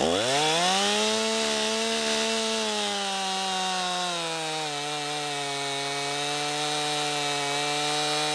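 Stihl MS 261 two-stroke chainsaw revving sharply up to full throttle and cutting down into a log. The engine pitch drops and settles lower about halfway through as the chain bites into the wood under load.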